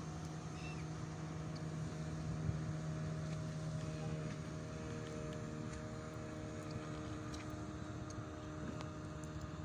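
Outboard motor of a small fishing skiff running at speed across the harbour: a steady, even-pitched drone over a light haze of wind and water.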